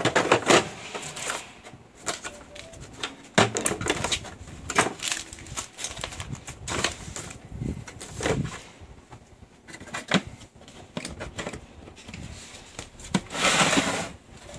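Handling of a Festool Systainer plastic tool case as the Domino DF500 joiner, its cord and papers are packed into it: scattered clicks, knocks and rustles. Near the end comes a longer scraping noise as a Systainer is slid across the wooden table.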